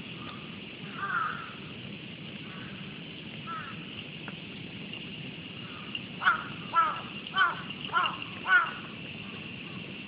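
A crow cawing: one call about a second in, then a series of five loud caws in quick succession, a little over half a second apart, over a steady high-pitched background drone.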